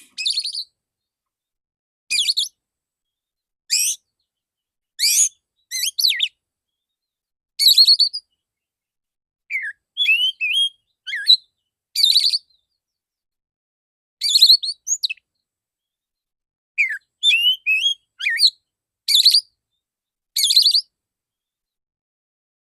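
Male oriental magpie-robin singing: a string of short, high, whistled phrases, each lasting well under a second, with a gap of a second or so between them, sung in the loud, clipped 'tembakan' (shot) style.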